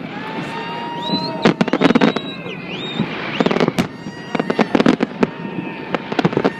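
Aerial fireworks bursting: volleys of rapid, sharp crackling bangs, one cluster about a second in and a longer one from about three and a half seconds on.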